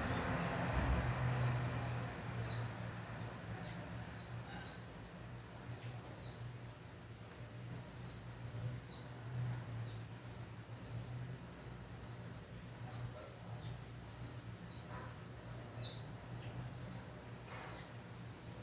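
Small birds chirping: short, high, repeated chirps, several every second, over a low steady hum.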